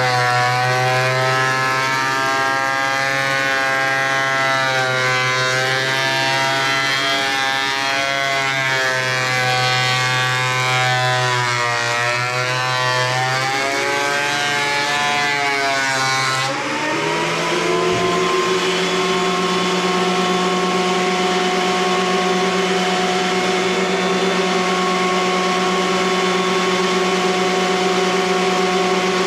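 Craftsman thickness planer running as a rough chainsaw-cut plank feeds through, its motor whine wavering and sagging under the load of the cut. A little over halfway through the pitch rises and settles into a steady, higher whine as the board clears the cutterhead and the motor runs free.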